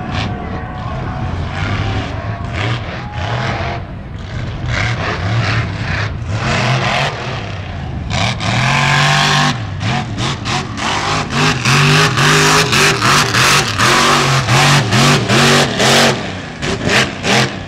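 Monster truck engine running hard, its pitch rising and falling with the throttle. From about ten seconds in, the throttle is blipped on and off a few times a second, in sharp revs, while the truck turns in the dirt.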